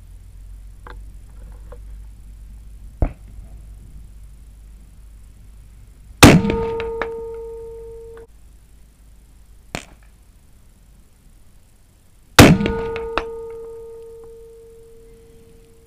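Two rifle shots about six seconds apart, each followed by a struck steel gong target ringing with a clear metallic tone that fades over two to three seconds. A few lighter sharp clicks come between the shots.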